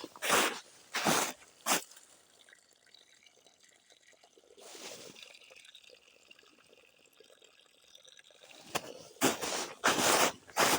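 Footsteps of a walker on a woodland path that stop about two seconds in, then a quiet pause with a soft swish about halfway through, and the steps start again near the end.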